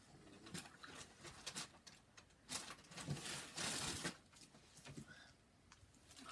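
Rustling and light clicks of things being handled at a table, with a longer, louder rustle about three and a half seconds in.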